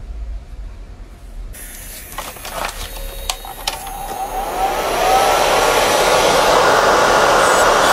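Nail dust collector fan whooshing steadily after it is switched on, with a few handling clicks. About halfway through, an electric nail drill spins up with a rising whine and then runs at a loud, steady whir.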